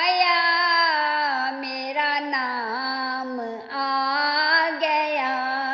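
A woman singing a Sufi devotional song in praise of Ghaus-ul-Azam, holding long, wavering notes that slide from pitch to pitch without words. There is a short break for breath a little over two-thirds through.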